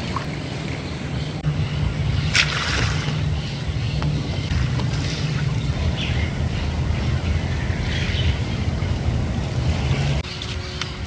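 Wind rumbling on the microphone, with a short rustle of reeds about two and a half seconds in. The rumble drops away suddenly near the end.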